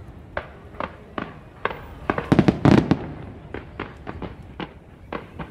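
Fireworks going off in quick succession: sharp cracks and pops, with a dense run of loud cracks about halfway through.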